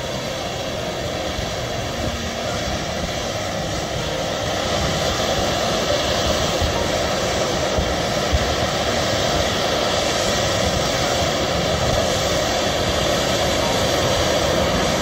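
Ōzutsu, a large bamboo-tube fountain firework, spewing sparks with a steady rushing hiss like a jet engine, growing louder about five seconds in.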